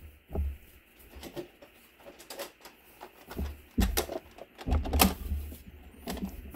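Scattered clicks and knocks as a TRULAP 8552 adjustable dumbbell is handled and lowered into its base, with a few heavier thumps about four and five seconds in as it settles into place.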